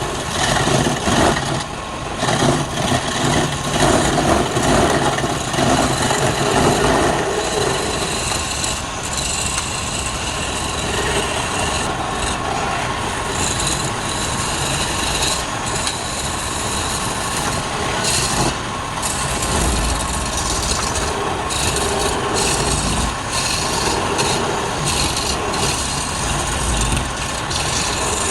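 Wood lathe running while a turning tool cuts the spinning wood: a continuous scraping cut over the machine's hum, more uneven in the first few seconds.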